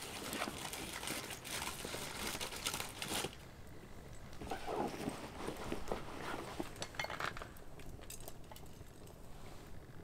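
Small twig campfire crackling, with a dense run of crackles and hiss that drops away about three seconds in, leaving scattered pops.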